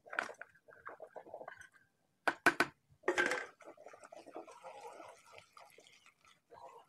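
A hand squishing and stirring thick egg and gram-flour batter with sliced onions in a plastic bowl: irregular wet squelching, with two sharp clicks about two and a half seconds in.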